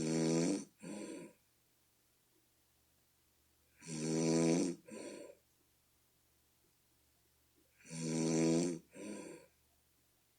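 A person snoring with a deep, bullfrog-like pitched snore, three times about four seconds apart. Each snore is a long one of about a second, followed at once by a shorter second one.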